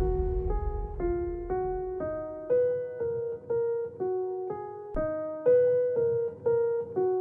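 Backing track of a rap song: a piano-like keyboard plays a slow melody of single notes, about two a second, each note dying away, with no drums or vocals.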